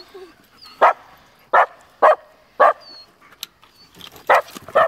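Labrador retrievers barking: six sharp barks, four about half a second apart, then a pause of over a second and two more near the end.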